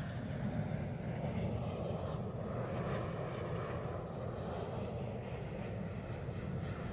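Embraer KC-390's twin turbofan engines running steadily as the jet flies its display, a continuous rumble with a faint high whine in the middle.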